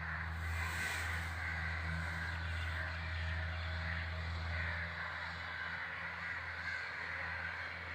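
Crows cawing, many overlapping calls forming a continuous harsh chatter, over a steady low hum.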